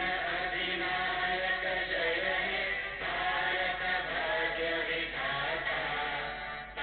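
A small group of boys singing together into a microphone, with a short break near the end.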